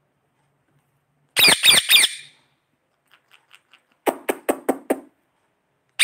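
Indian ringneck parrot giving three quick, shrill screeching calls about a second in. A little later comes a rapid run of about six short, sharp sounds.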